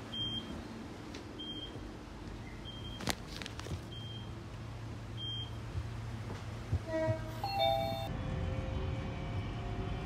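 Electric commuter train's door warning signal: a short high beep about every second and a quarter, five times, the signal that the doors are about to close, over a steady low hum from the train. Near the end, a two-note chime sounds, followed by a steady electric tone.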